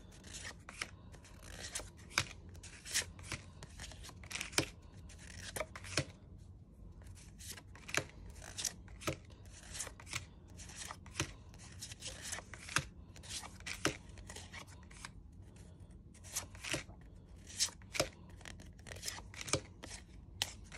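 Stiff cardstock cards being handled and flipped one by one, crisp paper snaps and taps at an irregular pace of about one or two a second, with soft sliding between them.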